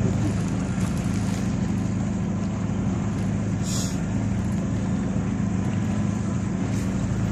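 A boat's engine running steadily, a constant low hum with a wash of wind and water noise over it, and a brief hiss about halfway through.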